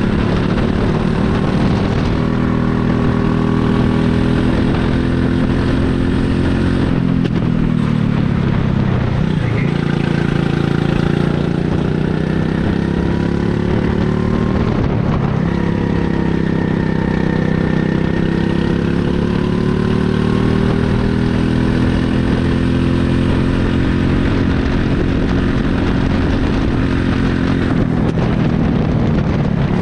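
Onboard sound of a rental go-kart's small petrol engine at racing speed, its note climbing along the straights and dropping sharply as the kart slows for corners, several times over.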